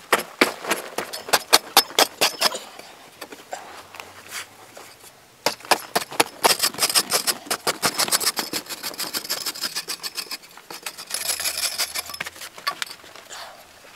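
A long-handled hand digging tool striking hard earth again and again in quick, irregular blows, with a short hiss near the end.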